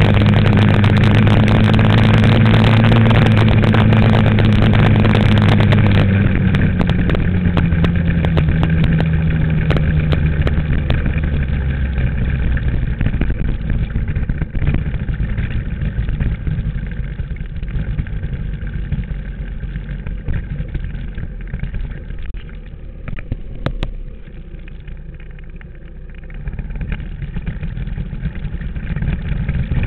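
Dirt bike engine running at a steady pace, then its revs falling away over several seconds as the bike slows. It runs quieter at low speed and picks up again near the end.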